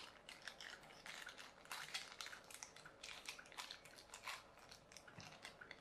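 Faint crinkling and crackling of a small clear plastic bag being worked open by fingers: a quick, irregular run of tiny crackles.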